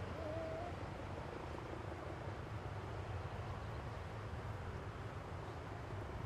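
Distant Boeing 737-800 jet engines giving a steady low rumble as the airliner rolls along the runway after landing. A brief wavering whistle of about half a second sounds right at the start.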